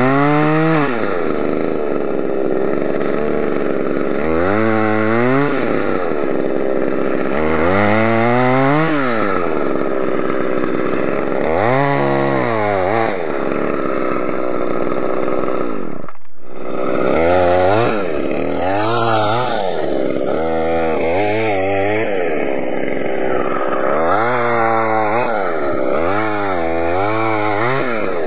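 Husqvarna two-stroke chainsaw revving up and dropping back again and again, each rev lasting about a second. After a brief cut-out about sixteen seconds in, the throttle blips come closer together.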